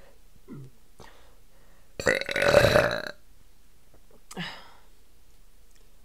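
A woman's long, loud burp about two seconds in, lasting about a second, brought up by gulping down bottled water fast. A short, fainter sound follows a little over a second later.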